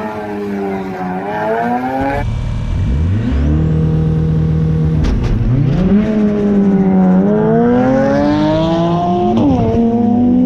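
Turbocharged 4G15 MIVEC four-cylinder engine of a Mitsubishi Lancer driven hard through a gymkhana course. It revs repeatedly, its pitch climbing under acceleration and falling sharply at lifts and gear changes, with a level stretch in the middle.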